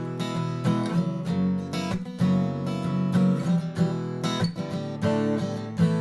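Steel-string acoustic guitar, a 1970s Suzuki copy of a Gibson Hummingbird, strummed in a steady run of chords.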